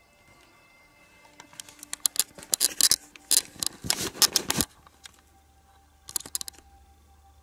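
Footsteps crunching and clicking on gritty debris on a basement floor: a dense run of crunches through the middle, then a brief second cluster near the end.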